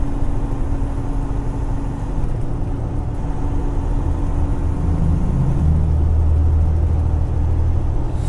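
Freightliner Cascadia semi truck heard from inside the cab on a steep downhill grade: a steady low engine and road drone with the engine brake working. The drone grows deeper and louder about five seconds in.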